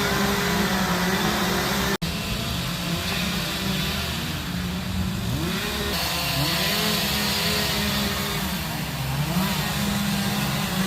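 Several two-stroke chainsaws running at once, their engines revving up and down and overlapping as they cut into wood. There is a momentary break in the sound about two seconds in.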